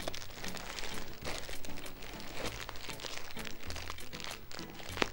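Parcel packaging crinkling and crackling as it is handled and pulled open, with a sharp click near the end.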